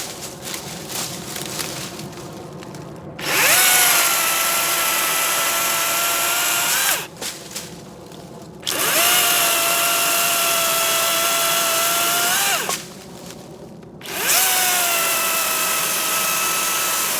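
Battery-powered electric chainsaw cutting short firewood logs in three runs of about four seconds each: the motor spins up with a rising whine, holds a steady high whine through the cut, and rises briefly just before each stop. Light knocks and handling sounds come before the first run.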